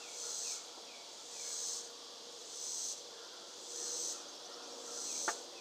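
Insects buzzing in high-pitched swells that rise and fade about once a second, with faint short chirps repeating between them. A single sharp click sounds near the end.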